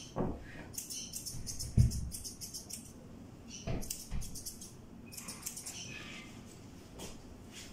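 A cat's coat being groomed by hand: several short bursts of quick, light, high clicking as the grooming tool works the fur, with a few dull thumps of handling against the table, the loudest about two seconds in.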